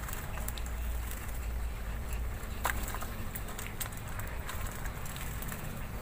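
Caged green leafbird (cucak hijau) bathing in its water tub: scattered light splashes and small clicks.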